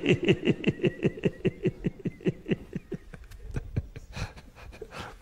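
A man laughing heartily: a long run of quick 'ha' pulses, about five a second, each dropping in pitch, that trails off into a few weaker breaths about three to four seconds in.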